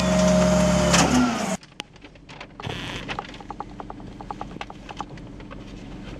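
Rear-loading garbage truck's hydraulic packer cycling, loud and steady with the engine revved, then cutting off abruptly about a second and a half in. After that come quieter scattered knocks and clatters of wheeled trash carts being tipped into a rear loader's hopper.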